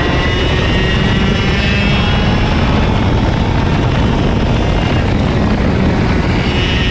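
IAME KA100 kart's 100cc two-stroke engine running hard on track under a dense rush of noise, its pitch lines coming back clearer near the end.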